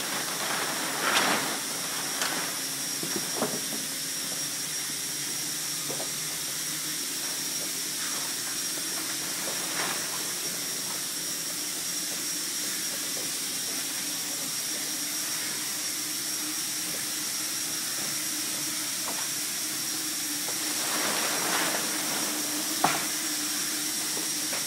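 A steady, even hiss with a faint high whine and a low hum running under it, and a few short knocks about a second or two in and again near the end.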